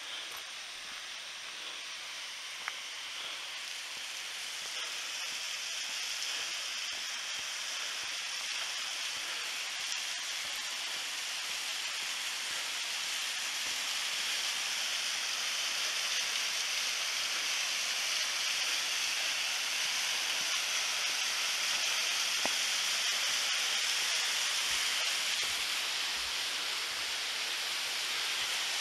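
Waterfall rushing with a steady hiss that grows gradually louder as it is approached.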